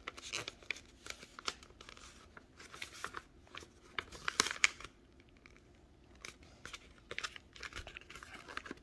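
Sheet of paper rustling and crinkling as it is handled and folded into a paper airplane, in a run of soft crackles with a quieter stretch about five seconds in.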